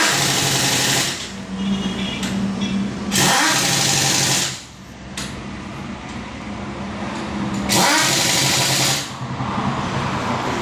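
Impact wrench firing in three bursts of about a second each, a few seconds apart, with a steady low hum in between.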